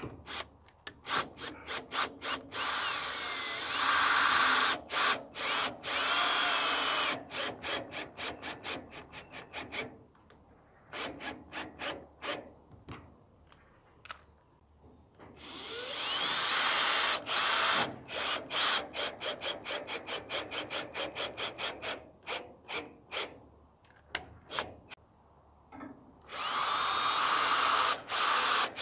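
Cordless drill driving screws through a metal coop door's mounting brackets into a wooden frame. It goes in many short trigger pulses and three longer runs, about 4, 16 and 26 seconds in, with the motor speeding up at the start of each run.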